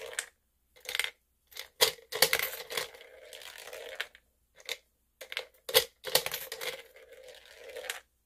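Plastic balls rolling and rattling down the plastic spiral ramp of a toy gumball machine, in two runs of about two seconds each, one ball after another, with sharp clicks in between as balls drop and knock on the plastic.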